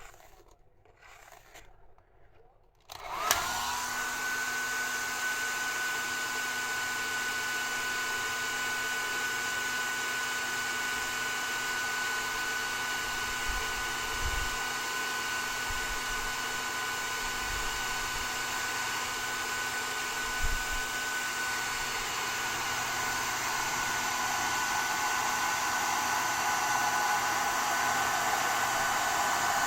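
A hand-held hair dryer switches on with a click about three seconds in, after a few faint handling noises. It then runs steadily as a dense whoosh with a steady high whine, growing slightly louder near the end.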